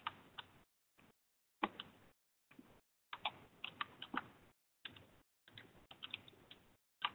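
Computer keyboard being typed on: faint, irregular key clicks in short runs with brief pauses, as a search query is keyed in.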